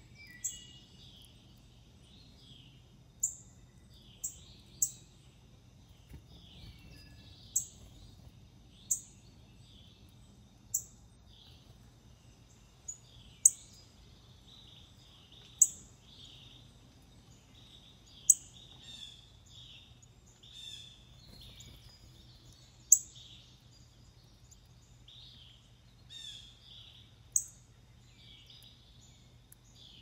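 Wild songbirds calling: a loud, sharp, high chip note repeated about a dozen times at uneven intervals of one to four seconds, over many softer chirps, with a faint steady low hum underneath.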